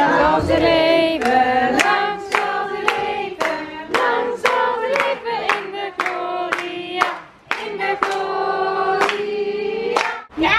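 A group of people singing a birthday song together and clapping along in time, about two claps a second, with the singing and clapping stopping shortly before the end.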